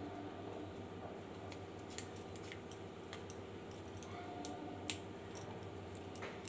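Faint scattered clicks and small snaps of fingers breaking the stalk ends off bok phool (Sesbania grandiflora) flowers and pulling out the stamen sheath on a wooden board, over a faint steady hum.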